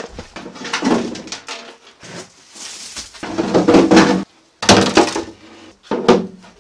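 Dry rat's-nest debris of sticks and leaves rustling and crunching as it is handled and dumped, in several loud bursts, with knocks from a plastic tub being set down.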